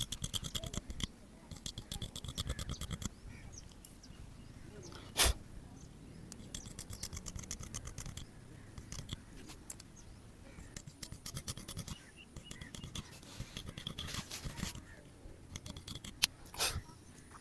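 Barber's scissors cutting hair in fast runs of rapid snips, broken by short pauses, with a couple of sharper single clicks, one about five seconds in and one near the end.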